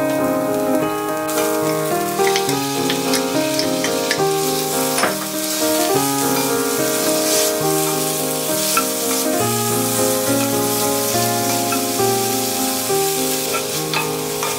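Sliced celery and other vegetables sizzling steadily in oil in a cast-iron pan, with a wooden spatula scraping and tapping against the pan now and then. Instrumental background music with held notes plays throughout.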